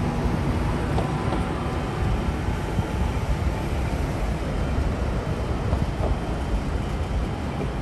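Steady low rumble of road and wind noise from a moving car, with a faint steady whine over it in the first few seconds.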